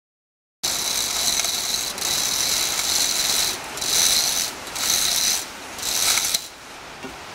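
Hand chain hoist hanging from a steel tripod being hauled to lift a heavy iron berdan bowl, its ratchet clattering. One long pull is followed by three short ones, and the sound cuts off abruptly near the end.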